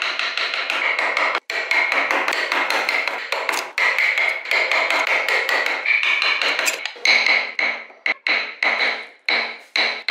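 Carving gouge or chisel struck repeatedly with a mallet as it cuts into hardwood, each stroke with a short ring. A dense, fast run of strokes slows about seven seconds in to separate taps about three a second.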